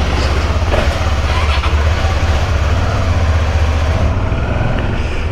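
Motorcycle engine idling steadily, just started up to check that it runs.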